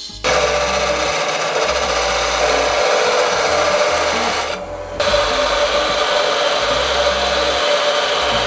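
Turning tool cutting into a spinning wooden spindle on a wood lathe: a steady rasping hiss of the cut, which drops away briefly about four and a half seconds in and then resumes.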